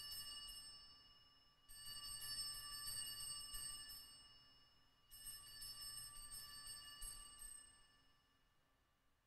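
Altar bells shaken in three rings a few seconds apart, each a jingling chime of several high bell tones that dies away. This is the signal of the elevation of the consecrated host at Mass.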